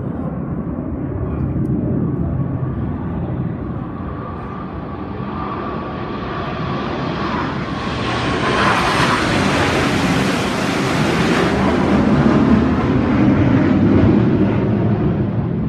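Formation of airplanes flying over: a steady engine rush with a thin whine. The sound brightens into a loud hissing rush as they pass overhead from about eight seconds in, and is loudest near the end.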